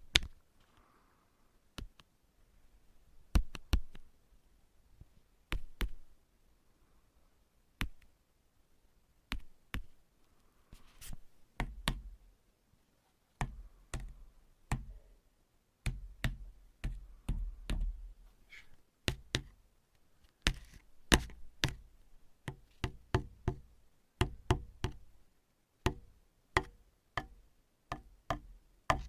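Knuckle or fingertip tapping on a hard surface. Sharp single taps come a second or two apart at first, then from about halfway through in quicker pairs and clusters of two or three.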